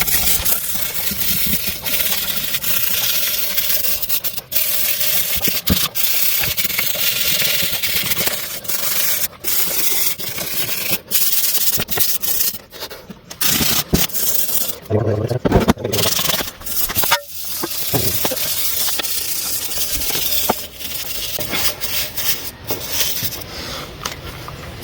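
Steady abrasive scrubbing and scraping on a flathead V8 engine part, taking off rust and old coolant scale, with a few short pauses.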